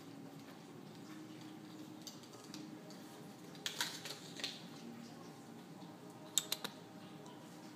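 A kitten batting and rolling at a straw on a tile floor: two short clusters of light clicks and scuffs, about halfway through and again near the end, over a faint steady hum.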